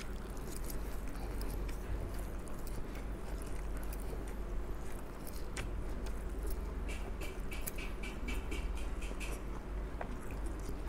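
A man chewing and slurping a mouthful of instant fried noodles (mie goreng), with small wet mouth clicks and a run of quick clicks about seven seconds in.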